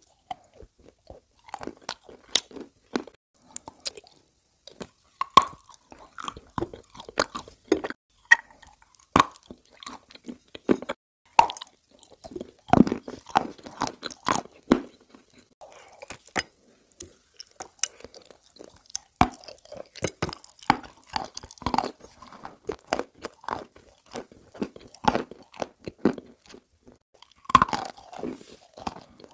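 Close-miked eating of cream-covered biscuits: irregular crunchy bites and chewing, in quick clusters of sharp crunches with short gaps between them.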